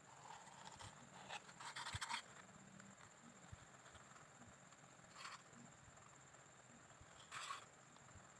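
Faint scraping and rustling from a plastic glue bottle's nozzle being drawn along the rim of a small round wooden base and the piece being handled: a few short bursts, the loudest about two seconds in, against near silence.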